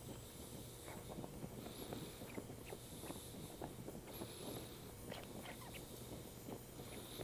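Gas torch flame hissing steadily as it preheats a broken cast iron plane part to red heat for bronze brazing, with faint irregular crackling throughout.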